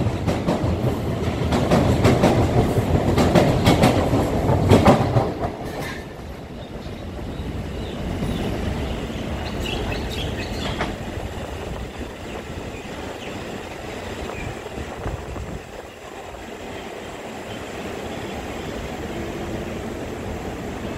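An MRT train passing close on an elevated track, its wheels clicking rapidly over the rail joints with a heavy rumble, fading out about five seconds in. A quieter, steady rumble of a more distant train follows, with a few brief high wheel squeals about ten seconds in.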